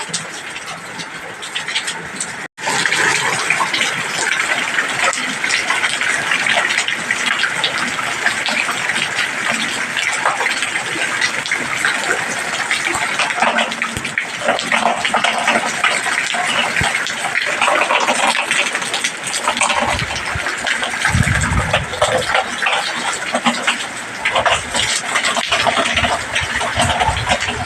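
Heavy rain pouring down in a steady, dense patter, with a split-second break about two and a half seconds in and some low rumbling around twenty seconds in.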